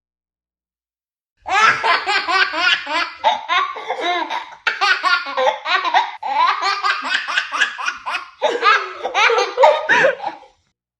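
A baby laughing hard in rapid, breathy bursts of giggles and belly laughs. The laughter starts after a short silence of about a second and a half, runs almost without a break and stops shortly before the end.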